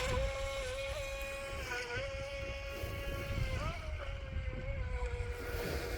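RC model boat's motor whining at a steady high pitch, dipping and wobbling slightly now and then. Wind rumbles on the microphone underneath.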